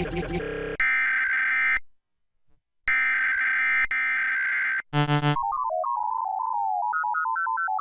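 Emergency Alert System SAME header data bursts: two bursts of shrill two-tone digital warbling with a short gap between them. A brief buzzy chord follows, then a single pure electronic tone stepping up and down in a simple tune.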